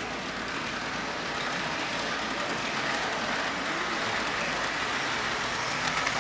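HO scale model train of an E60CP electric locomotive and Amfleet coaches running past on the track: a steady rushing of motor and wheels that grows a little louder as it passes, with a few light clicks from the wheels near the end.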